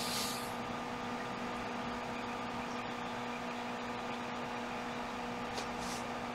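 Steady room tone: a low electrical hum with a hiss, and a couple of faint clicks near the end.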